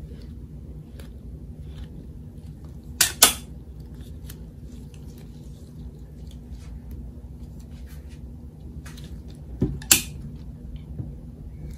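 Small handling sounds of soap-cutting tools on a cylindrical soap log in a wooden cutting box: a ridged crinkle scraper and a wire soap cutter. Two pairs of sharp clacks, about three seconds in and again about ten seconds in, with faint ticks between, over a low steady hum.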